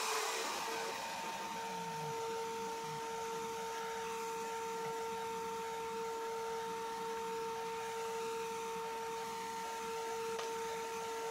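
Router in a bench-top router table running steadily at speed, a high whine, together with a shop vacuum drawing dust through the fence port, an even rushing hiss.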